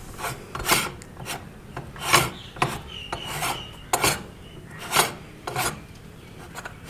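Threaded metal cap of a hand-operated sevaiyan (vermicelli) press being screwed onto the barrel by hand to hold the die plate: short rasping scrapes of metal thread on metal thread, roughly one a second as the cap is turned.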